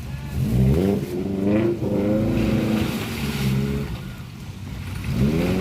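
Suzuki Jimny 4x4's engine revving hard under load off-road. It climbs about half a second in, holds, eases off around four seconds in, and rises again near the end.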